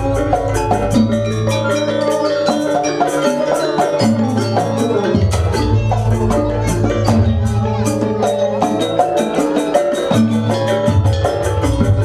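Janger gamelan accompaniment: a fast, busy pattern of struck metallophone notes and drum strokes over held low bass notes that change every second or two.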